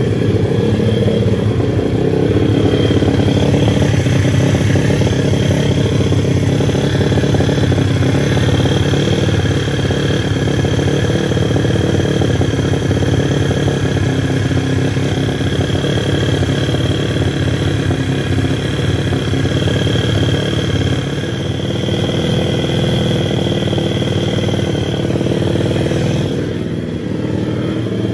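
Pit bike engine running loud and steady, its level dipping briefly near the end.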